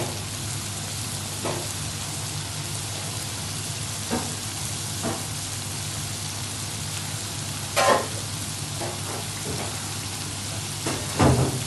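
Chicken bhuna sizzling as it fries in a pan, with a steady hiss, and a spatula stirring and scraping against the pan a few times, the loudest scrapes about eight seconds in and near the end.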